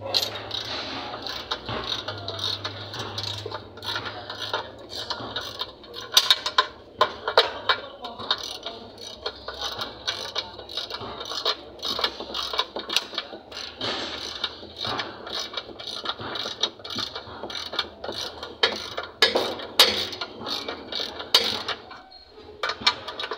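Ratchet wrench clicking in quick runs while the bolts around a truck's clutch pressure plate are loosened, with scattered metal clinks of tool on bolt.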